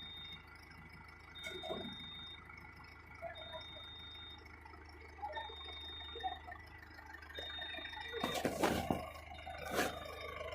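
A vehicle's electronic warning beeper sounding steady high beeps about a second long, one every two seconds, over a low steady engine hum. Two loud clanks come near the end.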